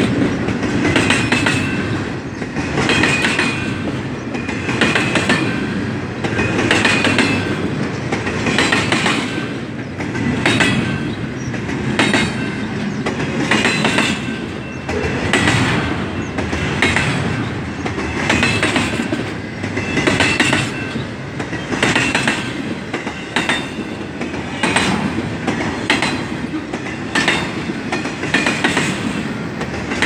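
Double-stack intermodal freight cars rolling past, with a continuous rumble and the wheels clattering over rail joints in a regular beat about once a second. Some of the beats carry a light metallic wheel squeal.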